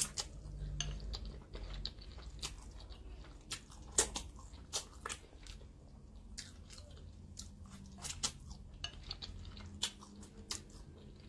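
Close-up eating of instant noodles: chewing and mouth sounds, with many sharp clicks and taps of chopsticks against a ceramic bowl scattered throughout.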